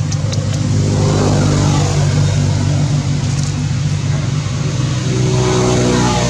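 A motor vehicle's engine running close by, its pitch climbing about a second in and again near the end.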